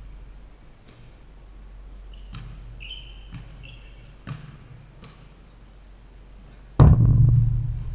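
A basketball bounces on a hardwood gym floor with short sneaker squeaks. Near the end a loud bang comes as the ball strikes the glass backboard and rim on a layup, and the backboard rumbles low as it dies away over about a second.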